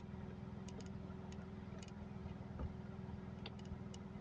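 Faint, scattered clicks of a tire inflator's screw-on hose chuck being fitted onto a tire valve, over a steady low hum.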